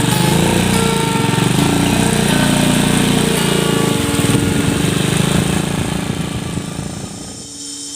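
A small engine running, its pitch shifting as it is throttled, then dying away over the last couple of seconds, leaving insects chirping.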